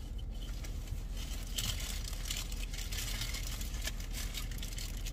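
Paper burger wrappers crinkling in patches, most in the middle stretch, over a steady low hum inside the parked car.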